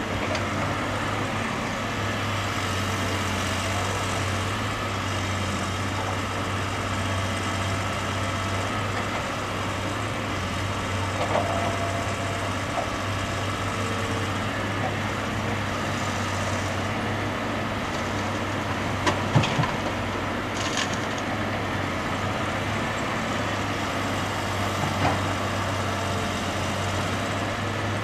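Heavy diesel engines running steadily, a Caterpillar 322 LN tracked excavator at work with a dump truck running beside it, with a few short knocks over the engine noise, the loudest about 19 seconds in.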